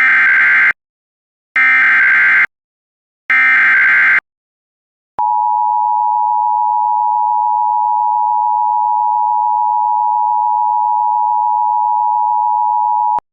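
Emergency Alert System header: three short bursts of SAME digital data tones, each just under a second long, then the steady EAS attention tone held for about eight seconds before it cuts off suddenly. Together they mark the start of an emergency alert broadcast.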